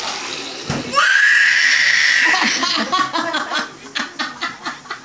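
A baby's high-pitched squeal held for about a second and a half, followed by a run of short bursts of laughter.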